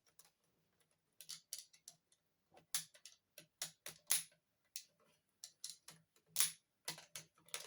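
Irregular light clicks and taps of hard plastic from a large plastic toy robot figure being handled.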